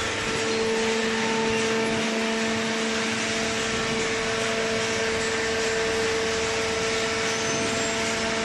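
Hydraulic cardboard baler's power unit running: a steady machine hum with a constant tone over even mechanical noise.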